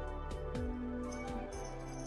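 Instrumental background music with held notes.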